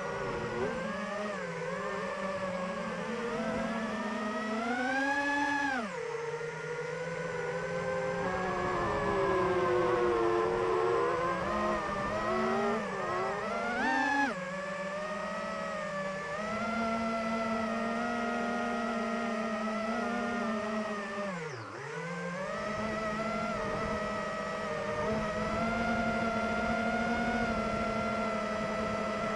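FPV racing quadcopter's brushless motors and propellers whining, the pitch rising and falling with the throttle. About two-thirds of the way through the whine drops sharply as the throttle is cut, then climbs back and holds steady.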